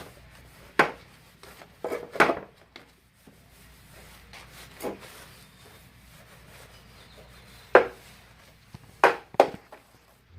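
Scattered knocks and clicks of hard objects being handled, about seven in all, irregularly spaced.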